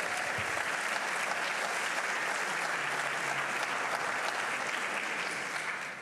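Audience applauding steadily, starting to die down at the very end.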